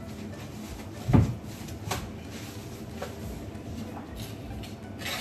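A salmon being handled and cut with a kitchen knife on a cutting board: one heavy thump about a second in, then a few light knocks.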